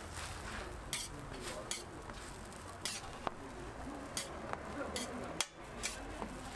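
Metal tongs clicking and tapping against a flat steel griddle in irregular sharp strikes as slices of bread are picked up and turned, over a faint steady sizzle of frying.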